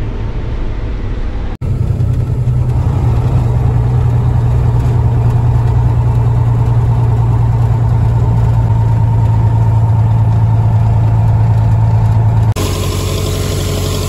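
Semi truck's diesel engine running steadily under way, heard from inside the cab as a loud, deep, even drone. Near the end it cuts to an engine idling more quietly.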